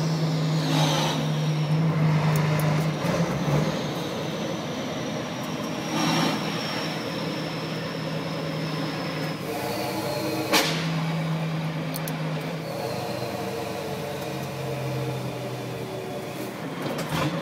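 Truck diesel engine running with a high, thin turbocharger whistle (the turbo 'singing') that slowly falls in pitch, then rises again near the end. Two brief sharp noises come about six and ten seconds in.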